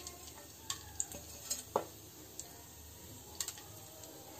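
Faint sizzling of ghee with whole black peppercorns, cloves and bay leaves in a clay pot on a low flame, with a few scattered light ticks and pops.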